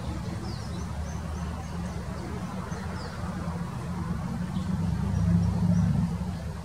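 A steady low rumble that swells about five seconds in, with faint short high bird chirps, some falling in pitch, scattered over it.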